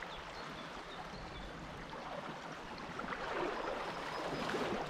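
Shallow river running over a stony bed: a steady rush of flowing water that grows a little louder about three seconds in.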